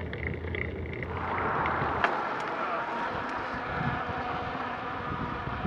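Wind buffeting the microphone of a camera mounted on a mountain bike, over the rolling noise of the bike's tyres. The sound changes abruptly with a click about two seconds in, as the riding surface changes from a rough forest track to a smooth paved cycle path.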